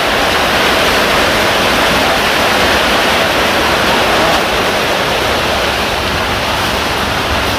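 Steady, loud rush of water with no breaks.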